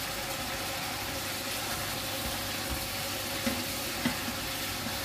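Bean sprouts with chicken and noodles sizzling in a saucy frying pan as a wooden spatula stirs them, with two light knocks of the spatula against the pan in the second half.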